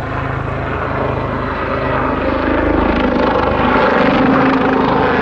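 Army Air Corps Westland Lynx helicopter flying its display, steady rotor beat under the whine of its twin turbine engines, growing louder as it comes in.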